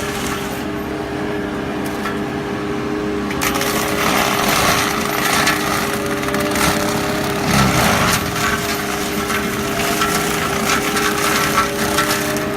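Fecon FMX36 excavator mulching head running with a steady hum while it shreds wood and brush, with irregular crackling and crunching that grows denser about a third of the way in.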